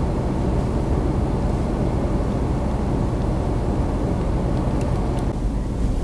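Strong blizzard wind buffeting the microphone: a steady, heavy low rumble of gusting wind. Near the end it gives way to a lower, steadier rumble.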